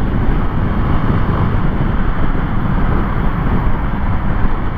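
Honda CB Twister 250 motorcycle at highway speed, around 100 km/h: steady wind rushing over the microphone with the single-cylinder engine running underneath, easing off slightly as the bike slows.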